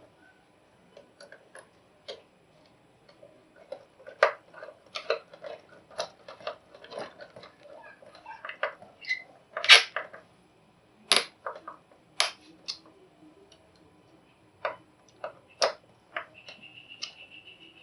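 Irregular clicks and taps of a screwdriver and wire ends being worked into an electric submeter's and breaker's terminal screws, with a sharper knock about ten seconds in.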